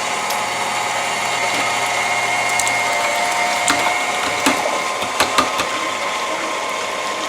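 KitchenAid stand mixer running at speed 4 with its food grinder attachment, grinding partially frozen beef: a steady motor-and-gear whine. A few sharp clicks and knocks come through in the middle.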